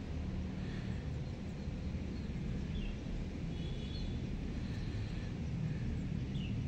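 Steady low outdoor rumble, with a few short bird chirps scattered through it.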